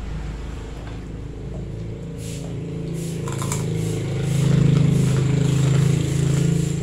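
Road traffic: a heavy vehicle's engine running steadily, growing louder about halfway through and staying loud until near the end.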